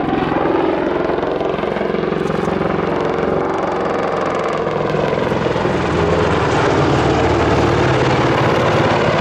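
Agusta-Westland Apache AH.1 attack helicopter flying a display manoeuvre: loud, steady rotor and twin turboshaft engine noise, with its pitch bending as it moves. It grows louder right at the start and again slightly about six seconds in.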